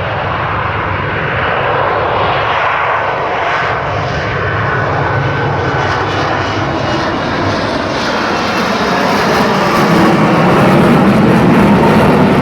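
Loud, steady jet roar of an F-35B Lightning II's Pratt & Whitney F135 engine, with the aircraft in its short-takeoff/vertical-landing mode and lift fan engaged. It grows somewhat louder in the later part.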